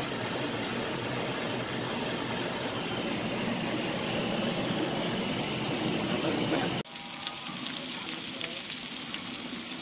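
Butter with garlic and thyme sizzling in a frying pan. About seven seconds in, the sound cuts off abruptly and comes back quieter: a salmon steak frying in the butter, with small scattered crackles.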